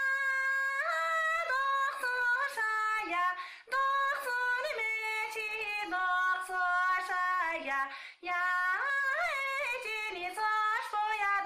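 A woman singing alone, unaccompanied, in a high voice: long held notes linked by ornamented slides and turns, with two short breaths about a third and two thirds of the way through.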